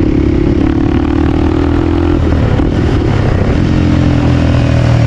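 Dirt bike engines running loudly at a steady pitch, which changes about two seconds in.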